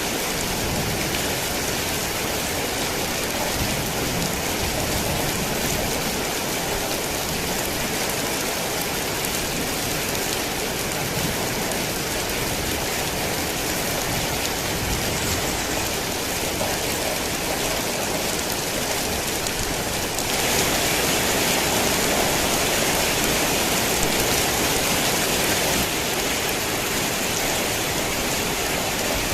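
Heavy rain falling steadily, a dense even hiss with no thunder heard. It turns louder abruptly about two-thirds of the way in and drops back a few seconds later.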